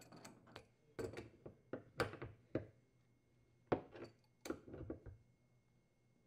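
Light metal clicks and clinks of an adjustable wrench and channel lock pliers working on brass gas fittings as the adapters are tightened, in irregular bunches with a short pause about three seconds in.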